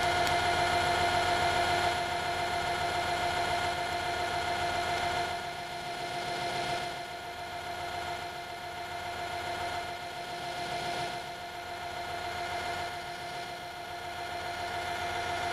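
Metal lathe running at a steady speed, a constant machine hum with a steady whine, a little quieter from about five seconds in.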